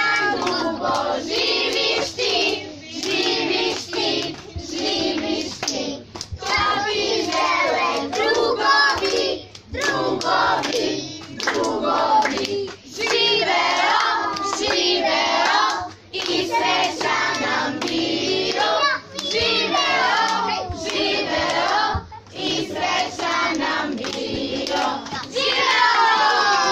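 A group of children and adults singing a birthday song together, clapping along in time, in phrases with short pauses between them.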